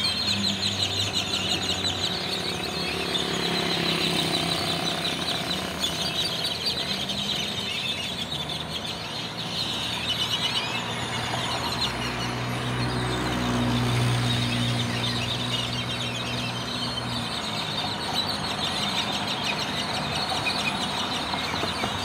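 Dense, continuous chatter of a large roosting flock of blackbirds (tordos) calling together as they settle into a tree at dusk. Under it runs the low hum of a vehicle engine, which grows louder around the middle and fades a few seconds later.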